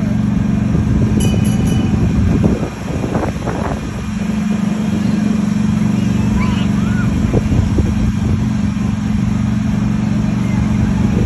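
Engine of a small ride train running steadily with a low drone as the train rolls along.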